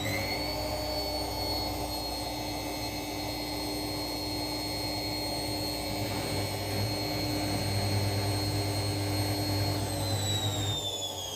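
Candy washing machine's motor at high spin speed, a steady high whine over a low hum; near the end the whine starts to fall in pitch as the spin winds down.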